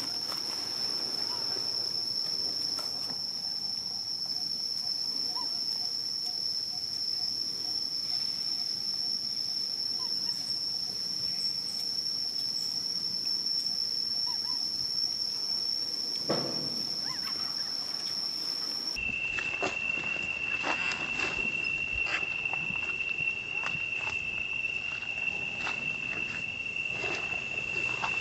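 Steady high-pitched insect drone. About two-thirds of the way in, the sound cuts to another steady insect drone at a lower pitch, with scattered light clicks.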